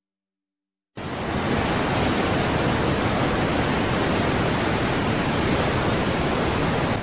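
Steady rushing of a waterfall, cutting in suddenly about a second in.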